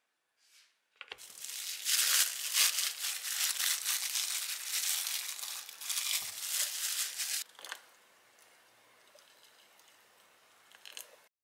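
Plastic cling film crinkling and rustling as it is peeled off a ball of miso dama. After that, a faint steady sound of hot water being poured from a kettle into a wooden bowl, stopping abruptly near the end.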